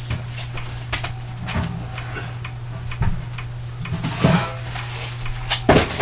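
Scattered light knocks and clicks of kitchen items being handled while an old baking pan is fetched, over a steady low hum, with a louder knock just before the end.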